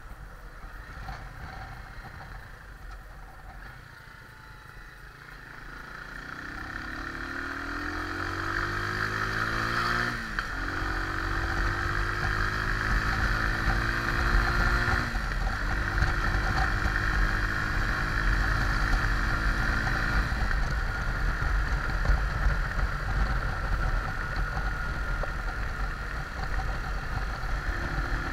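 Junak motorcycle engine pulling away and accelerating through the gears. It is quiet at first, then from about six seconds in its pitch climbs, drops at a gear change about ten seconds in, climbs again to a second shift about fifteen seconds in, and then holds steady at cruising speed. A steady rushing noise runs underneath.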